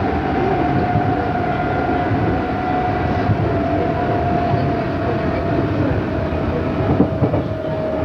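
Running sound inside an unrenewed Odakyu 8000 series field-chopper electric train car: a steady whine over rail noise, slowly falling in pitch as the train slows for a station stop, with a few short knocks about seven seconds in.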